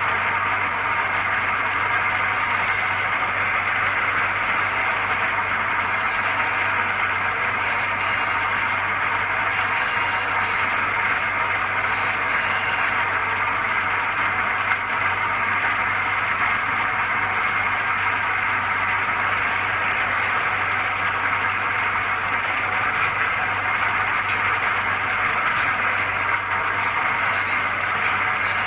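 Surface grinder taking a pass across a brake disc: the grinding wheel hisses steadily against the disc face while the machine's spindle, vacuum and hydraulic table pump motors run, over the constant buzz of a Transwave phase converter powering it. Faint light ticks come every couple of seconds in the first half and again near the end.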